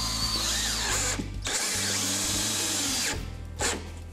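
Cordless drill driving screws into a metal mounting bracket: two long runs of the motor with a short break about a second and a half in, then a brief blip near the end.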